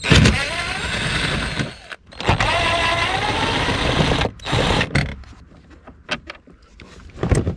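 Plastic glove-box and dash trim being worked by hand: two long stretches of plastic scraping and squeaking as a clipped plate is pushed free, then a few light clicks and a sharp snap near the end.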